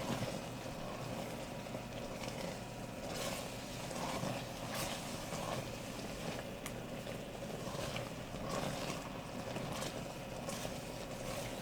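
Orange sauce thickened with tapioca starch bubbling at a boil in a pan, with a few light scrapes and taps of a spatula stirring it over a steady hiss.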